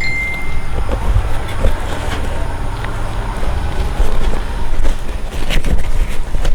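Toy box and plastic packaging being handled and opened: rustling with irregular clicks and knocks over a low rumble of handling noise on the microphone.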